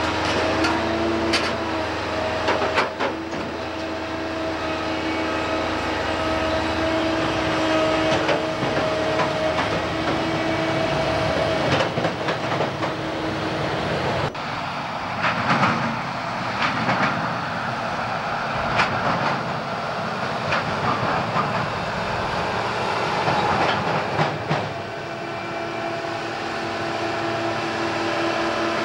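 A slow rail work train carrying rails and yellow gantry cranes rolls past, its wagon wheels rumbling and clicking over the rail joints. A steady machine hum fades out about halfway through and returns near the end.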